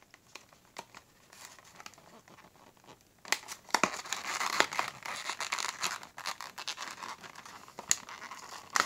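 Clear plastic blister pack being peeled and torn off a cardboard toy-car card, crinkling and crackling with sharp clicks. It is faint at first and grows much louder about three seconds in.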